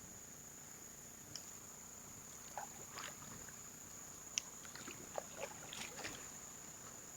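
Canoe being paddled: scattered soft splashes, drips and light paddle knocks, the sharpest about four seconds in, over a steady high-pitched whine.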